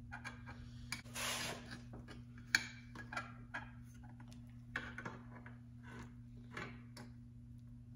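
Chrome grill centre trim being slid and set against a 1940 Ford grill section, making scattered light metal clicks and scrapes. There is a longer scrape about a second in and a sharp click about two and a half seconds in.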